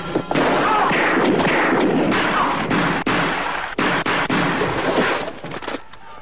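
Gunfire in a film soundtrack: a dense run of loud shots with crashing noise, which breaks off about a second before the end.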